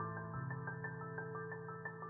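Instrumental background music: a quick, even run of short high notes over a held low chord, the chord changing about a third of a second in.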